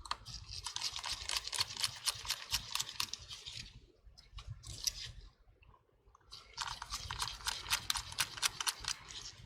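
Precision screwdriver working the two pentalobe screws beside an iPhone 6s charging port, making rapid fine clicking in two runs of a few seconds each, with a short pause between them.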